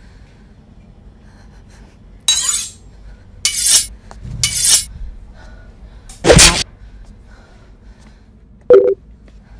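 Horror-trailer sound effects: five short, sharp crashes with a glassy, shattering edge over a faint low rumble. The last one is briefer and carries a pitched tone.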